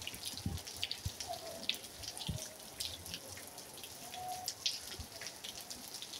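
Rain falling, a faint steady hiss with many scattered ticks of single drops and drips.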